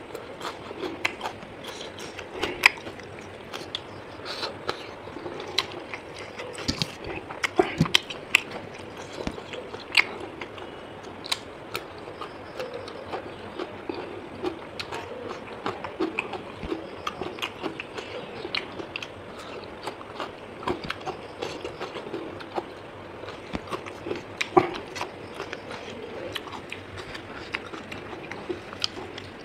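A person chewing and biting food close to the microphone, with many irregular mouth clicks.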